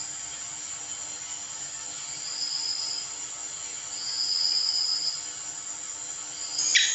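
Steady high-pitched ringing with a few drawn-out trills. Near the end, a house gecko (cicak) starts its call: a fast run of sharp chirps, about five or six a second.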